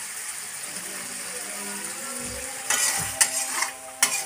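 Beef skin in chili sauce sizzling in a wok, then near the end a long metal spoon scrapes and stirs against the wok in several rough strokes.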